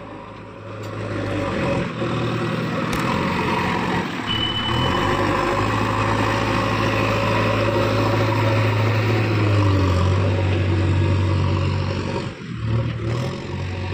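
JCB backhoe loader's diesel engine running steadily under load with a deep hum as the machine works, louder after the first second or so.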